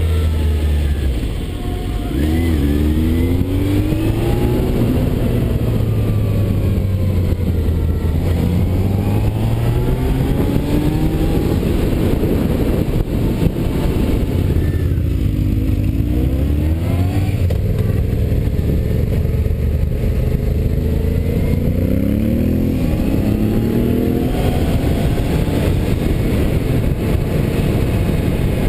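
Motorcycle engine running under way. The revs drop off briefly about a second in, then climb in repeated rising sweeps with gear changes as it pulls away, again around the middle and later on. A constant rush of wind and road noise runs underneath.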